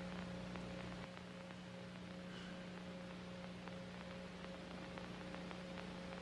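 A faint, steady electrical-sounding hum, one low tone with a weaker higher one, over a light hiss, with a few faint scattered ticks.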